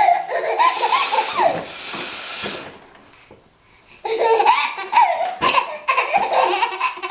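A baby laughing in high, bubbling bursts, broken by a short blow of a nose partway through; after a brief lull the baby bursts into laughter again about four seconds in.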